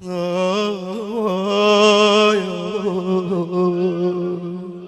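A solo lament singer holding one long wordless sung note, its pitch wavering in ornamented turns, in the style of an Iraqi Shia latmiyya. It starts suddenly, swells about two seconds in, and eases off near the end.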